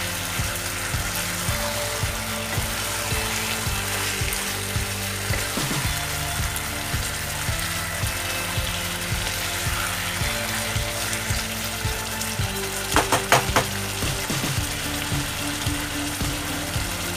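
Chicken pieces sizzling in oil and their own released juices in a nonstick karahi while being stirred with a wooden spatula. A quick cluster of sharp knocks comes about thirteen seconds in.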